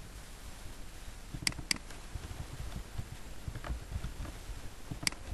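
Computer mouse clicking and keyboard keys tapping while code is edited: a quick double click about a second and a half in, a few fainter key taps after it, and another sharp click near the end, over a low steady hum.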